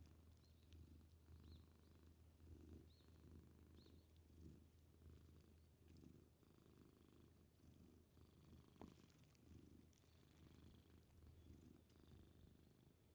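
Faint close-up purring of a stray orange-and-white cat being stroked: a low rumble that swells and eases with each breath, about twice a second.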